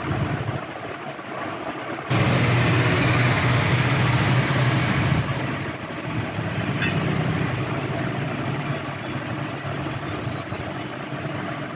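Electric hand drill boring a hole, starting suddenly about two seconds in, loudest for about three seconds, then running on a little lower.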